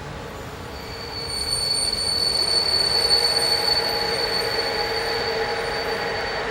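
A train rolling past with a steady, high-pitched wheel squeal that starts about a second in and stops near the end, over the rising noise of the train.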